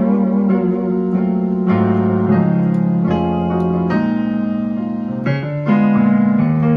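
Yamaha PSR-E473 arranger keyboard played with both hands: sustained chords changing about once a second, with low bass notes moving beneath them.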